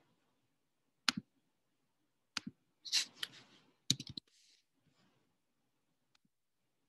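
A few sharp computer clicks: single ones about a second and two and a half seconds in, and a quick cluster near four seconds, with a brief soft hiss just before the cluster.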